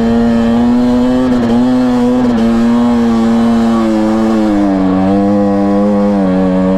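Dirt bike engine running hard at fairly steady revs up a steep climb. The pitch dips briefly twice early on and settles a little lower after about five seconds.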